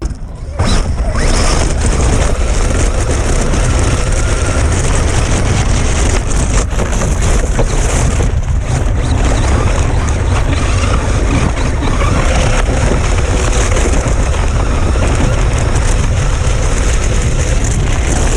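Electric RC truck running through snow, a steady motor whine under loud rushing noise from snow spray and wind on the camera microphone, starting abruptly.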